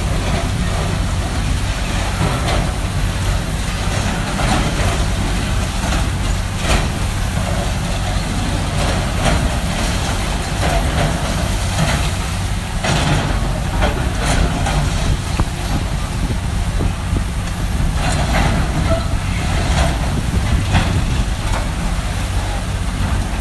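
Heavy diesel demolition machinery running steadily under load, with intermittent crunching and crashing of debris as the building is torn down.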